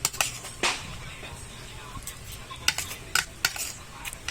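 Cutlery clinking and scraping against a plate or dish: a scattered series of short, sharp clinks, a few with a brief ring.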